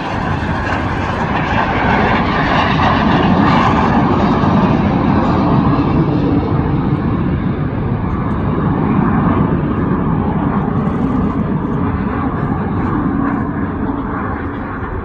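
Loud jet roar of CT-114 Tutor jets of the Snowbirds formation team passing. It swells over the first few seconds, then slowly fades and dulls toward the end as the formation moves away.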